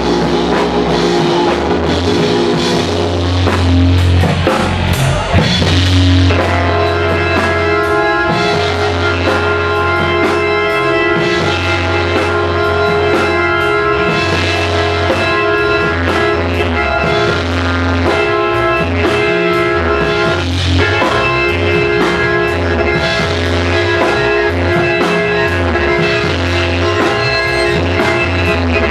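Instrumental psychedelic rock band playing live: drum kit, electric guitar and fretless bass under held chords, with a busier, louder drum passage about five seconds in.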